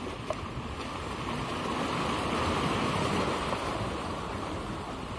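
Sea waves washing against a concrete tetrapod breakwater, swelling into a louder surge about two seconds in and easing off again.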